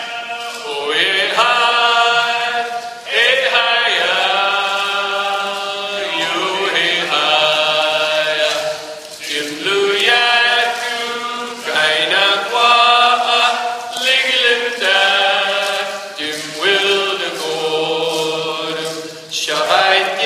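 A group of dancers singing their exit song together, a Northwest Coast chant in long held notes, phrase after phrase with short breaks between.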